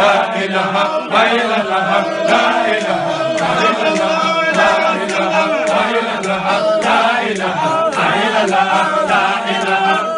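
A group of men chanting together, a continuous devotional Islamic chant with many voices overlapping and rising and falling in pitch.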